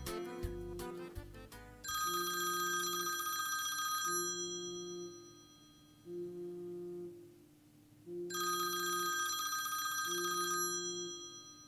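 The last beats of a grupera song, then a phone ringing. A low two-note tone pulses about once every two seconds, with a bright high ringing over it twice.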